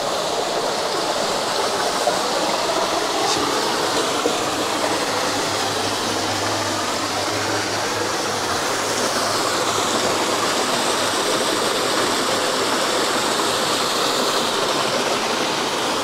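Mountain stream running over rocks, a steady rush of water.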